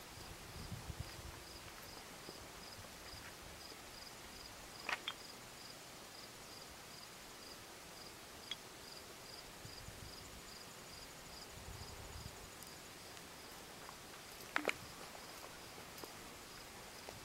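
Cricket chirping steadily in a high, even rhythm of about three chirps a second. Two brief sharp clicks stand out, about five seconds in and near the end.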